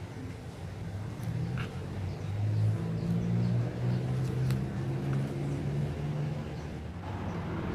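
A low motor drone in the background that drifts up and down in pitch, with a few light clicks of bonsai wire being wrapped and bent around a ficus branch.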